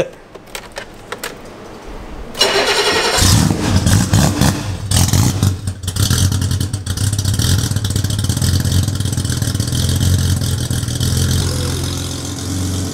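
BMW E28 M535i's 3.4-litre straight-six cranked by the starter for about a second, catching and revving briefly, then settling into a steady idle.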